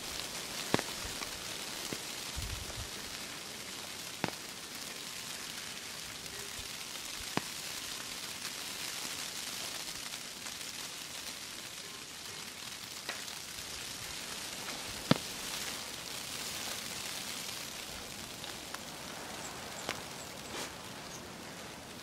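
Wet snow falling: a steady soft hiss, with now and then a single sharp tick. The loudest tick comes about fifteen seconds in.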